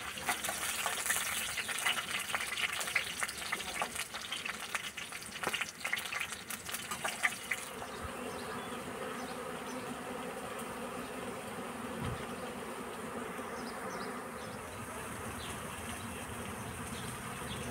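Cauliflower florets frying in hot oil in a wok, a crackling sizzle with sharp pops. About eight seconds in it changes to the steady hum of honeybees flying around a wooden hive entrance.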